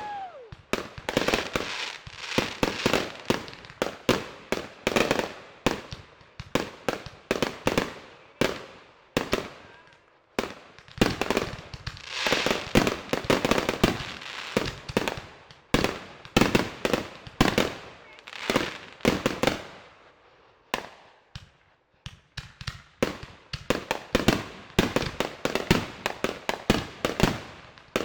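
Fireworks going off: a dense, irregular series of bangs and crackles, each ringing out briefly, with a short lull about twenty seconds in.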